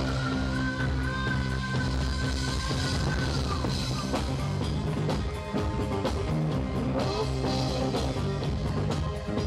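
Live rock band playing: drum kit and keyboard in a full band mix, with a long held lead note over the first three seconds or so.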